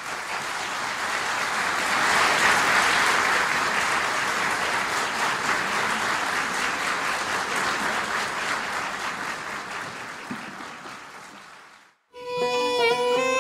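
Audience applause in a concert hall, swelling over the first couple of seconds and then slowly dying away. After a brief silence near the end, a violin begins playing.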